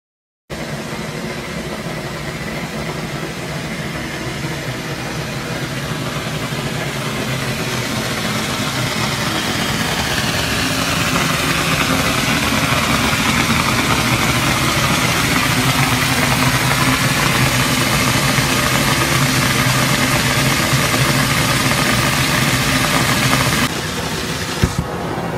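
Hot-spring geyser jetting boiling water and steam with a loud, steady rushing hiss that builds over the first ten seconds or so. Near the end it drops a little, and a single sharp knock is heard.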